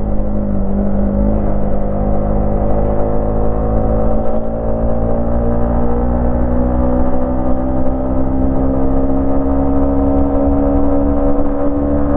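Yamaha MT-15's 155 cc single-cylinder engine running while riding, its revs climbing slowly and steadily.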